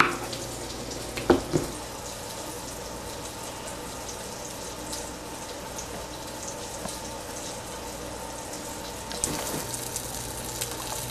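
Veggie chicken nuggets sizzling steadily in oil in a frying pan, the hiss growing louder near the end. A single knock comes about a second and a half in, a knife striking the cutting board.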